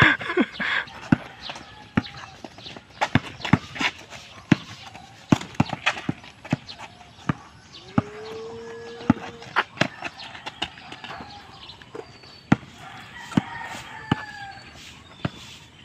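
Basketball dribbled on a concrete road: hard bounces at an irregular pace.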